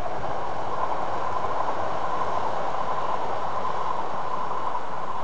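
Six-car E3-series Shinkansen train passing at speed: a steady rush of running noise with a thin steady whine in it.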